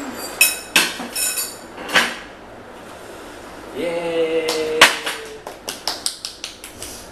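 A metal spoon clinking and scraping against ceramic bowls and plates in the first couple of seconds. About halfway through, a short held vocal note, then a quick run of hand claps.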